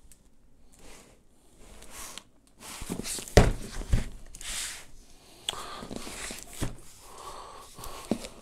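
A cardboard shipping box being handled and turned over on a desk, with rustling and scraping of cardboard and tape and two sharp thumps, a little over three seconds in and about four seconds in, as the box is set down.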